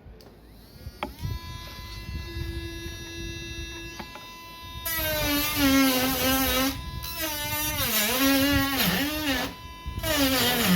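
A Dremel rotary tool with a sanding tip switches on about a second in and spins freely with a steady whine. From about five seconds in it grinds against the plastic of a laptop palm rest, louder and scratchier, its pitch dropping and wavering as the load slows the motor, easing off briefly a couple of times.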